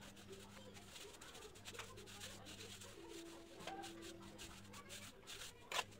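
Steel trowel scraping and smoothing a damp sand-cement mortar bed in a run of faint scrapes, with one sharper stroke near the end.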